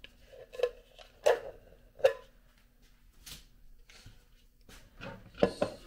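Serving plates and pastry containers being handled and set down on a table: a few separate light knocks and clatters, then a quick cluster of them near the end.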